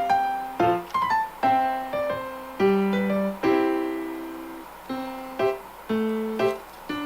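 Background piano music: a gentle melody of struck notes and chords, each ringing and fading before the next.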